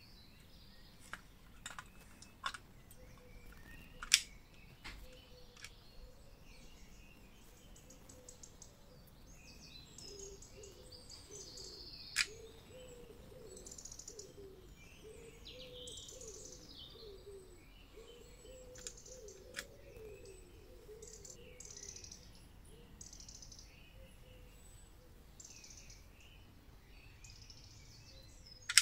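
Faint birds chirping, with a few sharp clicks from handling the lamp and battery. The loudest clicks come about four seconds and twelve seconds in, and another at the very end.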